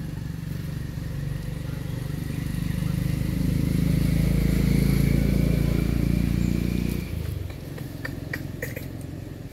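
Motor vehicle engine running, growing louder toward the middle and dropping away abruptly about seven seconds in.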